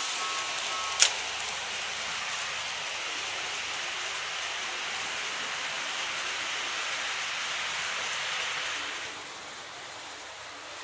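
N-scale model JR 189 series train running on its track, a steady rushing rattle of wheels and motor that drops away near the end as it moves off. About a second in, the model level crossing's two-tone warning bell stops at a sharp click as the barriers lift.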